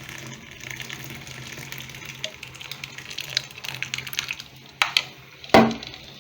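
Hot coffee poured from a pan through a strainer into a steel cup: a steady splashing trickle with small ticks, then two sharp knocks and one loud knock near the end.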